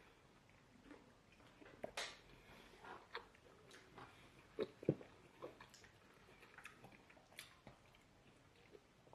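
Faint, scattered eating sounds from people eating fufu with fish light soup: irregular wet smacks and chewing, with the loudest couple of smacks about halfway through.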